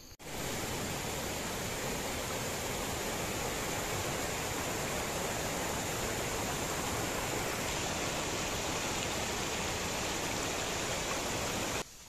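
Rushing mountain stream tumbling over rocks, a steady loud rush of water that cuts off suddenly near the end.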